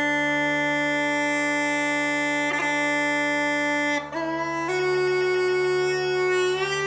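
Uileann pipes playing a slow air: a long held chanter note over the steady drones, then about four seconds in the melody climbs in a few short steps.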